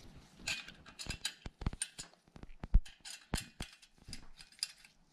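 A series of irregular metallic clicks and ticks from a hand tool tightening the bolts on a bike's stem and headset to take the play out of the headset.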